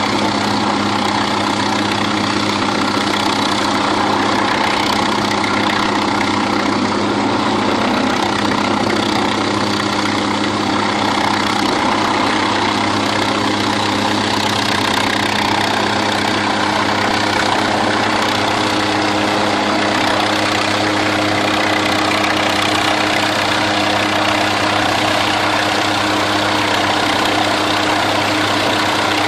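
MQ-8B Fire Scout unmanned helicopter's turboshaft engine and rotor running steadily with a constant low hum, a higher steady tone joining near the end.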